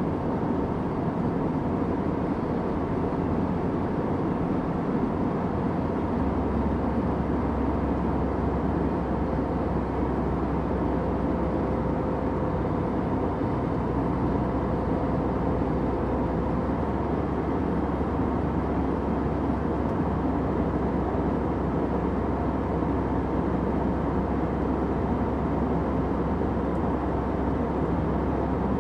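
Airplane cabin noise: a steady, low-pitched rushing noise with a faint steady hum, unchanging throughout.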